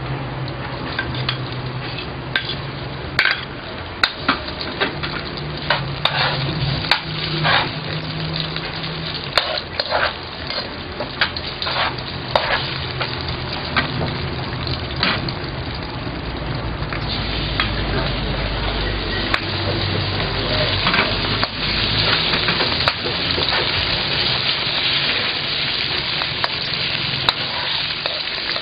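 Sliced pork frying in hot oil with onions and garlic in a wok, a steady sizzle while a utensil stirs it, clicking and scraping against the pan now and then. The sizzle grows denser and a little louder about halfway through.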